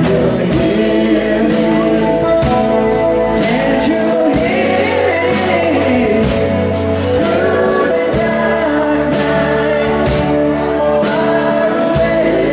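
Live band music: a woman sings lead over strummed acoustic guitars, with a steady beat.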